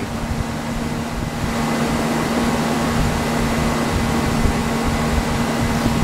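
R-22 air conditioner running steadily: a constant machine hum with one steady low tone, a little stronger from about a second in.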